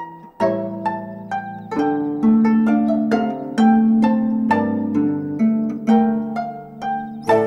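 Gayageum (Korean zither) playing a plucked melody, about two to three notes a second, each note ringing and fading. Lower held notes sound beneath it from about two seconds in.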